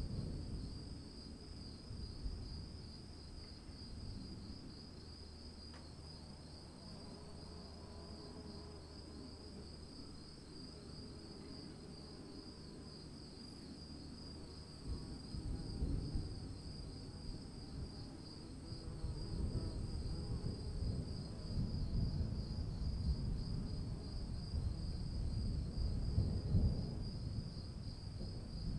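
Steady insect chorus, a fast pulsing trill, over low rumbling noise that grows louder from about halfway through.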